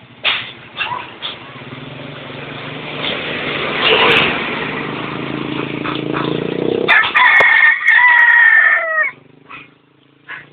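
Rooster crowing loudly, its long drawn-out final note starting about seven seconds in and dropping in pitch as it ends. Under the first part, a low droning rumble builds up and cuts off sharply just as the crow begins.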